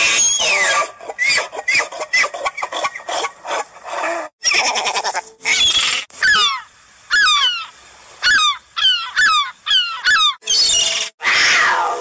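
The end of a bull elk's bugle, a whistle sliding down in pitch, runs into a rapid series of short chirping grunts. After a short break about four seconds in, an American herring gull gives its long call: a string of about ten loud yelps, each falling in pitch. Near the end the gull stops and a different animal sound begins.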